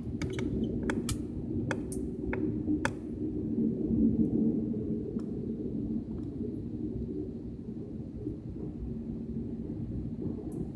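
Steady low hum inside an airliner cabin, with several sharp clicks in the first three seconds and a few fainter ones later.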